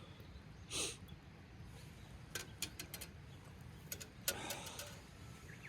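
A short hissing rustle, then a series of light sharp clicks and taps with a brief rustle after them, over a faint steady background.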